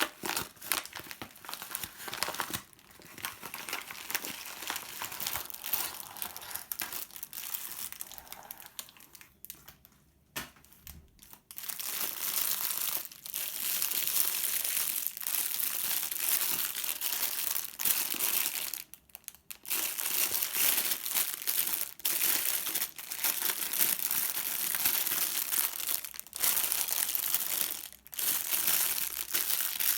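Packaging crinkling and rustling as it is handled and unwrapped by hand: patchy and softer at first, then louder and nearly continuous from about twelve seconds in, with two brief pauses.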